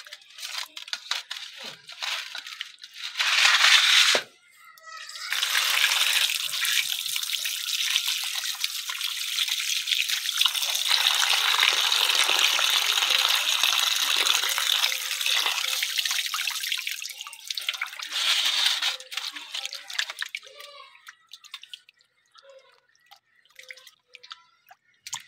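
A stream of water pouring into a steel bowl of cut fish pieces, running steadily from about five seconds in until it stops near nineteen seconds. Hands squelch and slosh the fish pieces before and after, with a brief loud rush about three seconds in.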